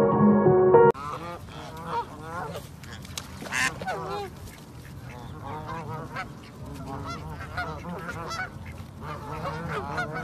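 Soft instrumental music for about the first second, then a Canada goose honking in many short, repeated calls.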